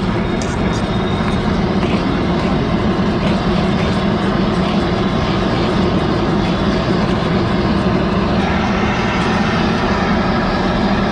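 Metal spoon rapidly beating a thick sauce mixture in a steel bowl, with irregular light clinks and scrapes, over a loud steady roar of machinery.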